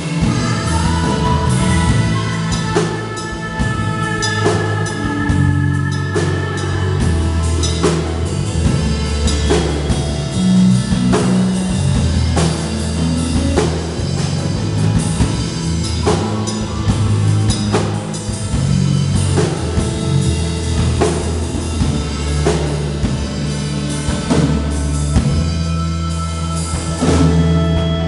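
Live rock-style worship band playing an instrumental passage: drum kit with kick and snare keeping a steady beat, electric bass, electric guitar and keyboard.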